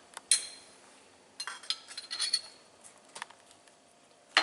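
A kitchen utensil tapping and clinking against a bowl in a few light, scattered clicks, most of them clustered around the middle, as ginger is added to the sauce bowl.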